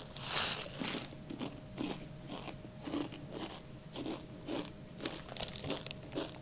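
Crushed kettle-style potato chip crumbs tipped from the bag into the mouth with a rustling rush near the start, then crunchy chewing, about two to three crunches a second.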